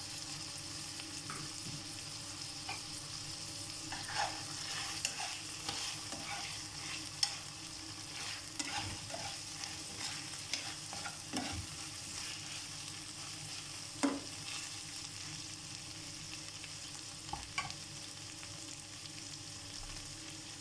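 Chicken liver, onions and green peppers sizzling steadily in a frying pan, with the occasional click and scrape of a utensil stirring them against the pan.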